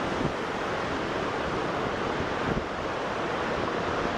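Niagara River rapids and whirlpool rushing, a steady roar of white water, with some wind buffeting the microphone.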